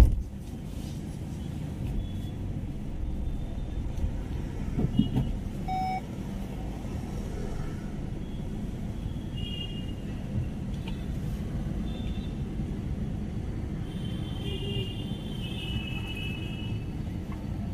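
Steady low rumble of road vehicles and traffic, with a sharp click right at the start.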